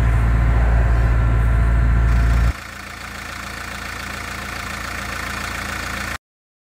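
Liebherr A 918 C wheeled excavator's diesel engine running, loud and deep as heard from the operator's cab. About two and a half seconds in, it changes to a quieter, thinner idle heard at the open engine bay, and it cuts off suddenly near the end.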